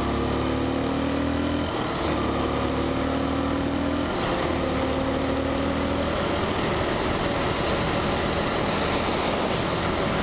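Motorcycle engine accelerating through the gears: its pitch climbs, drops briefly at a shift, climbs again, and after two shifts settles to a steady cruise under the rush of wind and wet-road noise.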